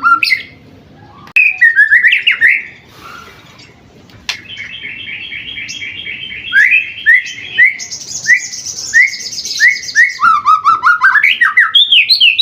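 White-rumped shama (murai batu) of the Pastol type, seven months old, singing a long, varied song: quick chattering phrases, then a run of repeated down-slurred whistles under a high rattling trill, ending in rising phrases.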